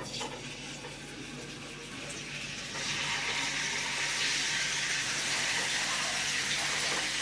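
Marinated chicken pieces sizzling in hot oil in a flat frying pan as they are laid in; the sizzle gets louder about three seconds in, as more pieces go into the pan, then holds steady.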